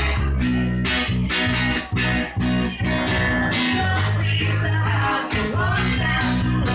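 Live band music led by guitar, plucked and strummed, over sustained bass notes and regular percussive hits.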